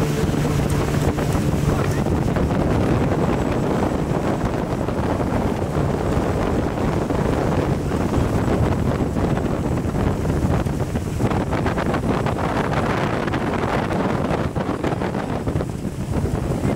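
Wind buffeting the microphone over rushing water and spray from a speedboat under way, with its outboard motor running underneath. The motor's tone is clearest in the first two seconds, then sinks into the rush of wind and water.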